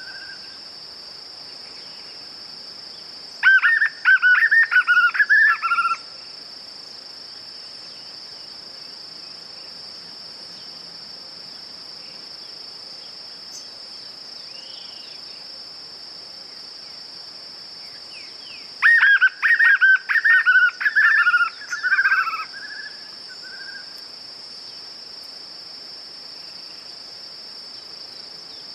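White-eared puffbird (João-bobo) singing two short bouts of quick rising-and-falling notes, each about three seconds long, one a few seconds in and another past the middle. A steady high insect buzz runs underneath.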